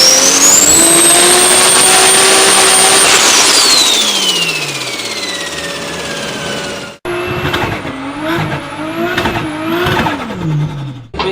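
Turbocharged car engine under throttle with a high turbo whistle that rises, holds, then winds down over several seconds. About seven seconds in, a second turbocharged car's engine is revved up and down several times under a wavering turbo whistle.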